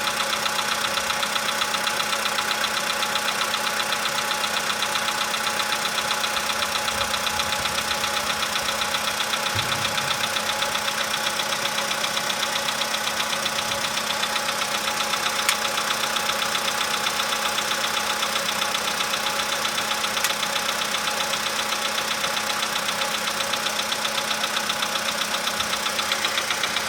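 Volkswagen Polo sedan engine idling steadily while still cold after a cold start, with a fast, regular knocking running through the idle: the engine knock the owner is recording.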